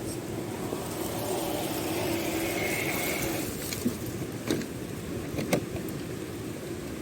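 An RC scale crawler's small electric motor and gears whine for a couple of seconds over the steady rush of floodwater, followed by a few sharp knocks.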